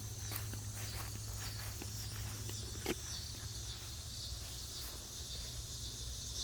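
Outdoor summer background of insects, a steady high-pitched drone, over a steady low hum, with a few light rustles and clicks and one sharper snap about three seconds in.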